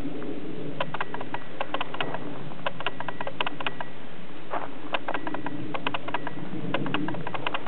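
Wind rushing across the camcorder microphone, a steady low noise broken by irregular clusters of sharp crackling clicks.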